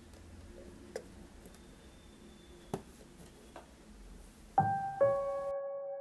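Quiet background music with a few faint clicks, then two piano notes struck about half a second apart near the end, ringing on.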